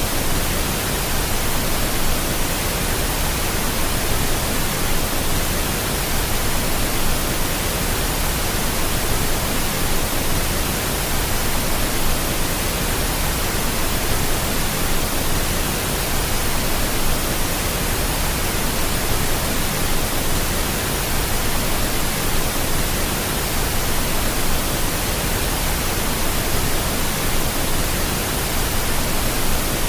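Pink noise: a steady, even hiss spread across all pitches, with no changes or events.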